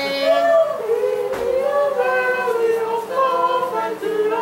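A young female voice singing a slow melody without accompaniment, in long held notes that step from pitch to pitch.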